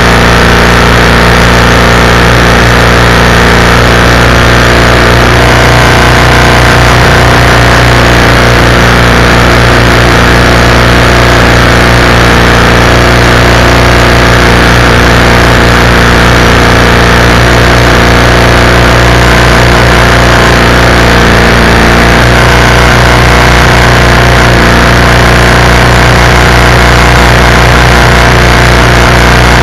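Predator 212cc single-cylinder four-stroke engine running steadily and loudly, turning a propeller through an inboard shaft.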